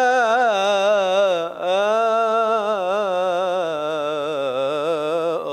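A man singing a long, ornamented melismatic phrase solo in the Egyptian ibtihal style of religious chant. The voice wavers in quick turns, breaks briefly about a second and a half in, then holds a long note that slowly sinks in pitch.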